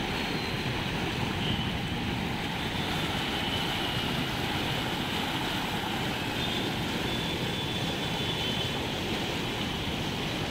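Fast-flowing muddy floodwater rushing and churning through a swollen stream channel: a steady, continuous rush of water.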